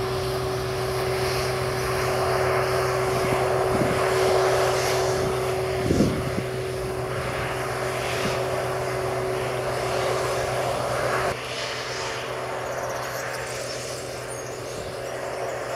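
Claas Dominator 208 Mega combine harvester running with a steady mechanical drone and whirr. There is a single thump about six seconds in, and the level drops suddenly a little after eleven seconds, when the deeper part of the drone stops.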